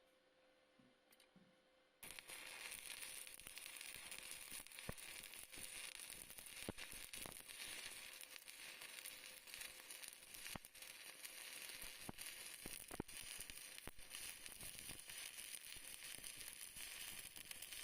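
Stick-welding arc struck about two seconds in, then burning steadily with a continuous crackle and frequent sharp pops.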